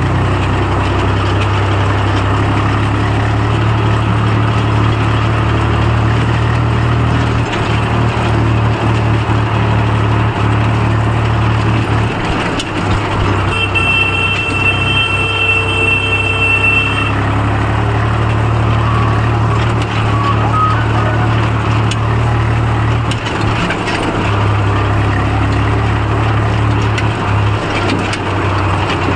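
Farm tractor's diesel engine running steadily while the tractor is driven. About halfway through, a high, steady horn-like tone sounds for about three seconds.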